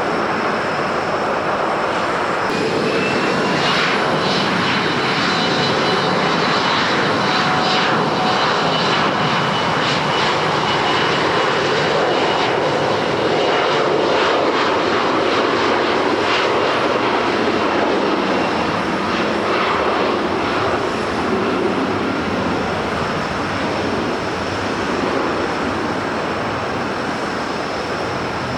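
Airliner engines running as an airliner moves along the runway: a steady, loud rush with faint whining tones, one of them rising early on, swelling slightly around the middle.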